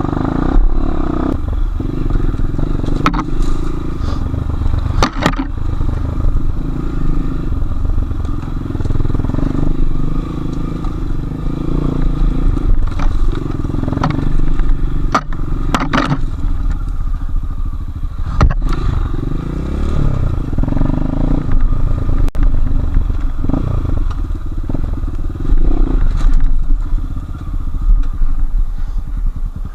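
Enduro motorcycle engine running under riding load, its pitch rising and falling with the throttle, with several sharp knocks and clatters from the bike over rough ground.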